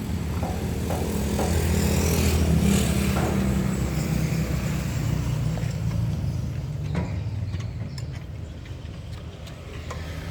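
A motor vehicle's engine running with a low rumble that swells a couple of seconds in, then slowly fades.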